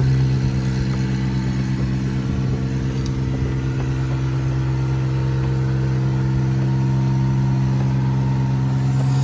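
Bucket truck's engine and hydraulic system running steadily as the boom lifts the bucket, a constant low hum that holds the same pitch throughout.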